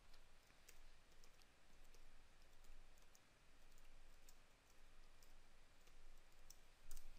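Faint, scattered keystrokes on a computer keyboard as a username and password are typed, over near-silent room tone.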